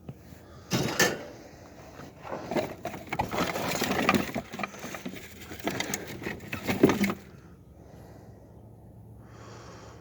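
Scrap metal and junk being handled and tossed, a run of irregular clattering knocks and rattles that stops about seven seconds in, leaving only a faint low hum.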